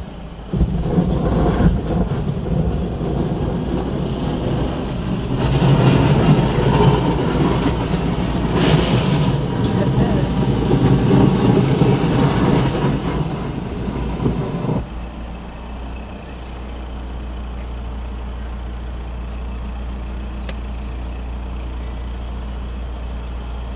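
Audi car running, heard from inside the cabin. A louder rushing vehicle noise lasts until about fifteen seconds in, then gives way to a steady low hum.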